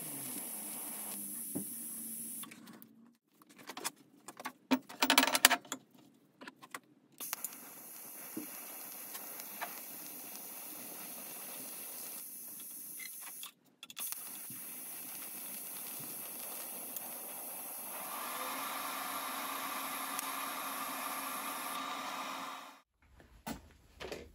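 TIG welding arc running at about 107 amps on thin steel subframe plates: a steady hiss with a high whine, stopping and restarting between runs. A few seconds in, a stretch of clicks and knocks breaks in, and the arc cuts off about a second before the end.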